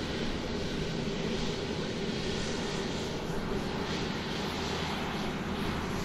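Airplane engine noise, steady and even, with a low hum under it and no change in pitch or level.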